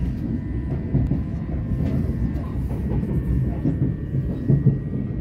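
A c2c electric passenger train running along the line, heard from inside the carriage: a steady low rumble of wheels on rail with a faint steady high tone. A few short clicks and knocks from the rails come through it.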